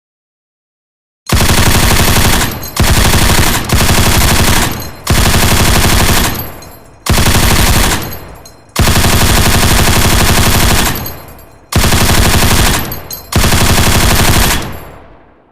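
M240 7.62 mm belt-fed machine gun firing about eight bursts of automatic fire, starting about a second in, each burst a second or two long with short pauses between. Each burst trails off in an echo tail.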